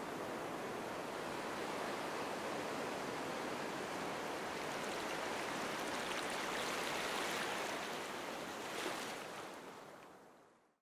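Steady rushing outdoor ambience sound effect, with no music or voice, fading out over the last two seconds.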